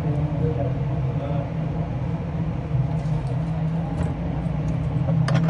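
Steady low background hum, with a few sharp clicks near the end as a laptop is handled on the bench.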